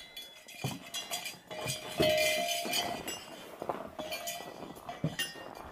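Small metal bells hanging from a wooden walking staff jingling and clinking unevenly as the staff is carried along, with a louder ring about two seconds in.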